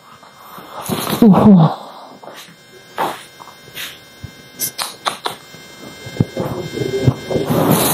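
A short vocal sound about a second in, then the rustle of a padded duvet being gathered and moved, with scattered light knocks and clicks.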